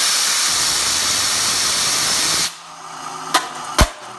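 Compressed air from an air compressor blasting a fidget spinner clamped in a vise, a loud steady hiss that cuts off suddenly about two and a half seconds in. The spinner then whirs quietly, and two sharp clacks follow as the aluminum beer can held against it is struck by the spinning arms.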